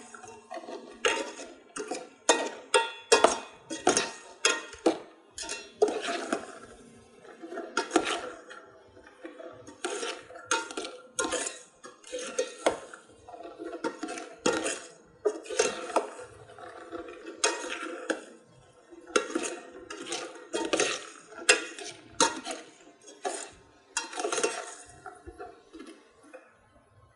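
Metal skimmer knocking and scraping against the sides of a metal pot as coated peanuts are stirred in hot frying oil, in irregular clanks about one or two a second.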